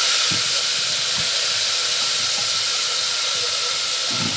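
Vinegar hitting hot oil and frying garlic in a pan, giving a steady loud hiss and sizzle as it boils off in steam.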